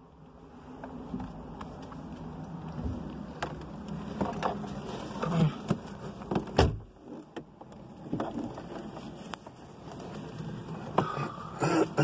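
Turbocharged Porsche 911 flat-six idling, heard from inside the cabin as a steady low hum, with scattered clicks and knocks of handling over it.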